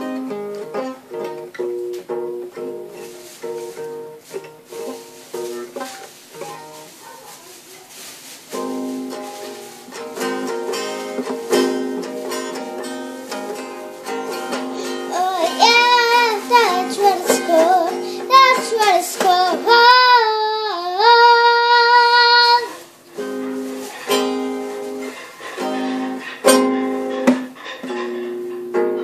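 A small pink guitar strummed and picked through a simple chord pattern. From about halfway a girl's voice joins, singing wavering notes and ending on a long held note; the strumming then goes on alone.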